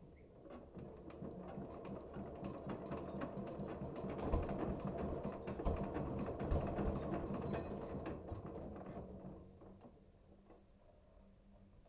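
Rapid, irregular clicking and rattling of hard parts being handled, building up over several seconds and dying down near the end, over a faint steady low hum.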